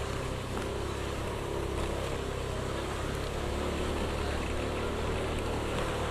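Motorcycle engine running steadily while riding, a constant drone with road noise.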